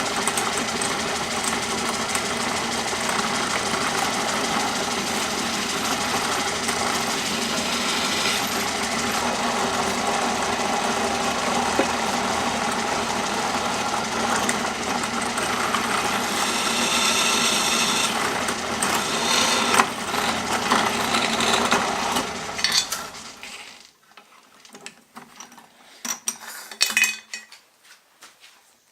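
Electric drill running steadily as it bores holes through 1/8-inch steel plate, stopping about 23 seconds in, followed by a few light knocks.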